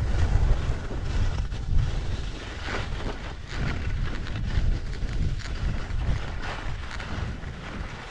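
Wind buffeting an action camera's microphone over the hiss and scrape of skis sliding on snow, easing a little near the end.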